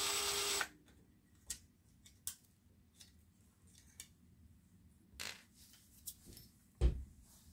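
Milwaukee M18 cordless drill/driver spinning out a screw from the monitor chassis; its pitch sags slightly and it stops about half a second in. Then light scattered clicks from handling the circuit board and wires, with one duller knock near the end.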